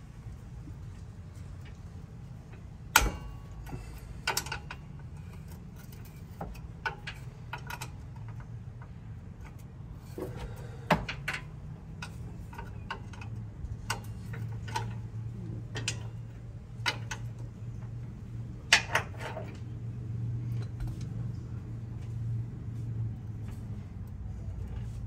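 Hand tools clicking and knocking against a rear brake line fitting as it is loosened, in scattered sharp knocks, the loudest about three seconds in and again near the middle and about nineteen seconds in. A low steady hum runs underneath and grows louder about halfway through.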